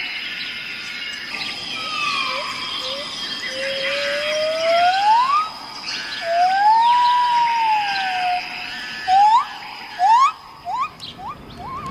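Songbirds chirping together, with a loud whistled call that slides slowly up in pitch and then arches up and down, followed near the end by four or five quick rising whistles. A steady high thin tone sits under it throughout.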